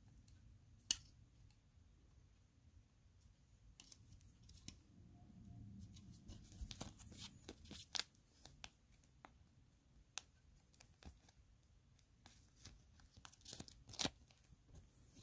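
Faint, sharp clicks and snaps of small plastic Lego pieces being handled and pressed together, scattered irregularly with a couple of quick flurries.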